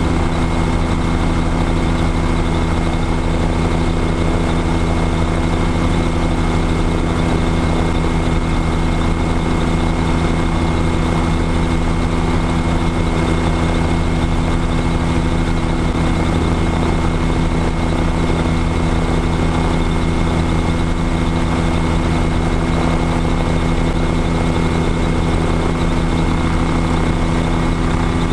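Light high-wing airplane's piston engine and propeller running steadily on the ground with the plane standing still, an even, unchanging drone heard from a camera on the tail.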